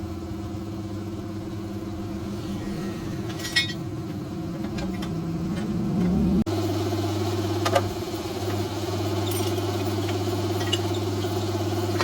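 A small engine or motor runs steadily with a low hum. Its pitch climbs between about five and six and a half seconds in, then the sound changes abruptly and runs steady again, with a few sharp clicks along the way.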